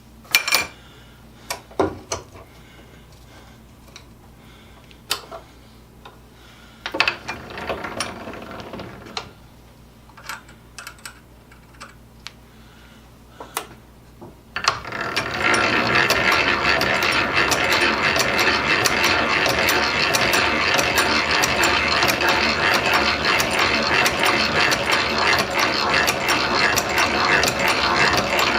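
Scattered clicks and knocks of tools being handled, then about halfway through a hand-cranked drill starts turning steadily, its gears clicking rapidly and continuously as the bit cuts into the steel plate.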